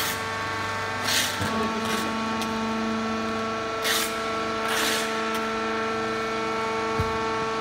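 Hydraulic wood-shavings baling press running with a steady hum of several tones, a lower tone joining about a second and a half in. Four short hissing bursts come through it, at about one, two, four and five seconds in.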